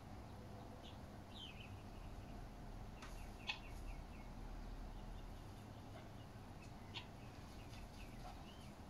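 Faint, short high bird chirps scattered throughout, with a quick run of falling notes about three seconds in, and two sharp clicks, the louder about three and a half seconds in and another about seven seconds in.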